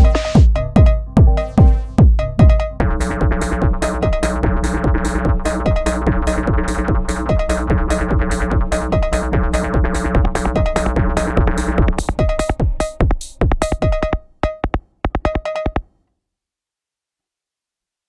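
Electronic music from an Elektron Syntakt drum machine and synthesizer: a steady kick drum until about three seconds in, then a sustained synth chord over fast rhythmic hits. Near twelve seconds the bass drops away, the hits thin out, and everything cuts off suddenly about sixteen seconds in, leaving silence.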